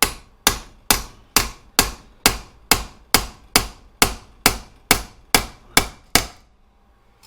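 Hammer tapping a homemade pin jig to flare a short piece of brake pipe into a rivet eyelet: about fifteen even, ringing strikes at roughly two a second, stopping about six seconds in.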